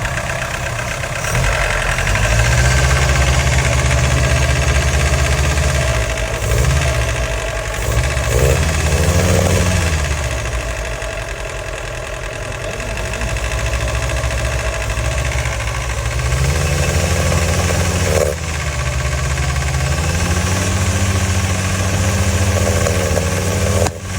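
Datsun 1800 engine running and being revved up and down several times, held at higher revs and dropped back, with a sudden fall in revs about 18 seconds in. It is making a strange noise whose cause is not identified.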